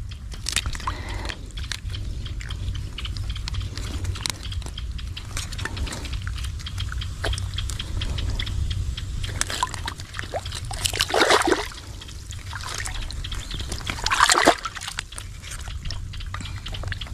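Water sloshing and trickling over a steady low rumble, with two louder splashes, about eleven and fourteen seconds in.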